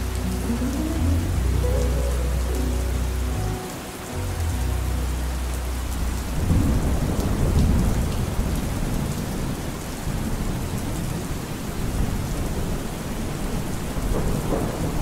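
Steady rain hissing, with thunder rumbling in from about six seconds in and rolling on to the end. Under it, the last held low notes of a slowed-down song die away by about halfway through.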